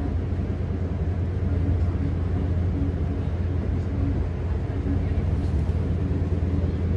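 Train running along the track, heard from inside the carriage: a steady low rumble.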